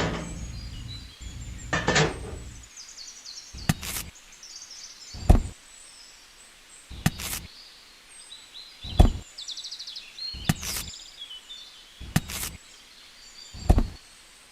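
A series of sharp knocks, one about every second and a half to two seconds, over birds chirping; a low rumble runs through the first two or three seconds.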